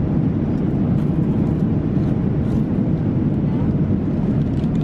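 Steady low roar of an airliner's cabin in flight, engine and airflow noise heard from a passenger seat.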